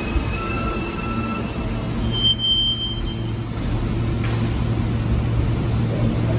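R160A subway train braking to a stop: steady high tones for the first second and a half, a short high brake squeal about two seconds in, then the steady low hum of the train standing still.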